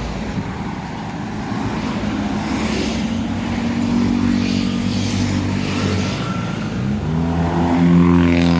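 A bus passing close by, its engine rising in pitch as it accelerates and growing louder towards the end.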